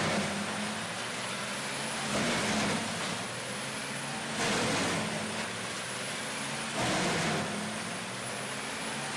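Diesel-powered horizontal wood grinder running under load while a grapple feeds whole trees into it. Its steady engine drone and grinding noise swell louder about every two and a half seconds.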